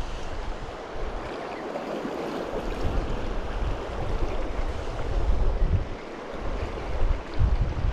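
Rushing water of a river rapid, a steady hiss, with wind buffeting the microphone in gusts that come and go.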